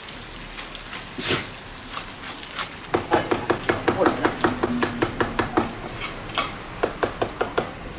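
Cleaver chopping spring onions on a thick wooden chopping board: a fast, even run of chops, about six a second, starting about three seconds in, pausing briefly and resuming.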